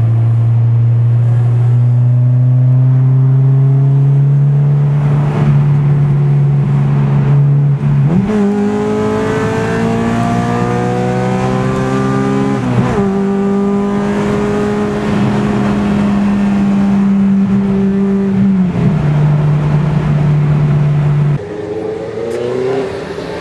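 Car engine running under way, heard from inside the cabin: its note slowly rises in pitch, steps up and later drops back. It cuts off abruptly near the end, leaving a quieter background.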